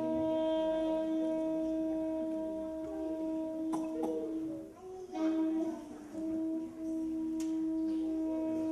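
Slow accompanying music, a saxophone holding long sustained notes, with a short break about five seconds in. A couple of faint clicks sound over it.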